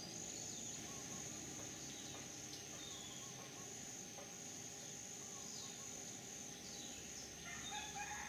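Steady high-pitched insect trilling, with a few faint falling bird chirps over it. Near the end, a few louder short calls from another animal come in.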